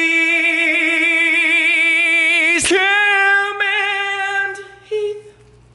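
A man singing a long drawn-out note on "homies" with a wide vibrato, unaccompanied. About two and a half seconds in there is a sudden click, and then a group of men hold a sung note together that fades out near the end.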